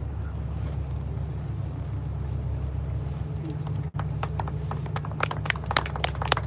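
Passengers clapping by hand, starting scattered about four seconds in and thickening toward the end, over the steady low hum of the tour boat's engine.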